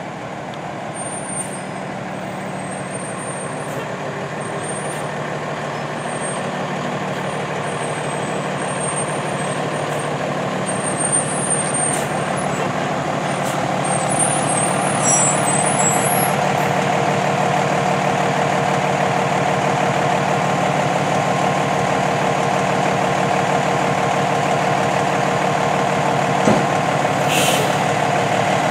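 Fire engine's diesel engine running, getting louder over the first half as the rig pulls out of the bay, then steady. Near the end there is a short air-brake hiss.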